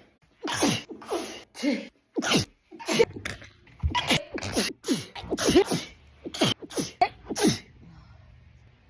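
A woman sneezing in a rapid fit: over a dozen sharp sneezes in quick succession, with short gasps between them.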